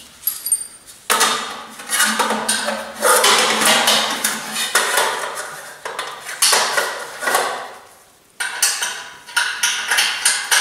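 Stainless steel bucket and sheet-metal parts scraping and clanking against a welded steel grill stand as they are pushed and fitted into place by hand. Several spells of rasping metal scraping with short pauses between them, and a brief ringing clink near the start.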